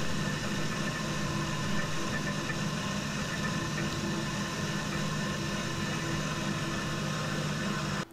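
Milling head of a 1998 Shoptask XMTC Gold lathe-mill combo running steadily while a twist drill cuts a shallow oil-cup hole into a bronze casting. The sound is a steady machine hum with a higher whine over it.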